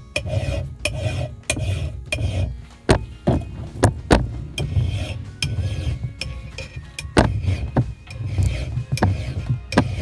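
A flat file rasping across the steel bit of an axe in repeated back-and-forth sharpening strokes, a couple per second, with a few sharp clicks in between.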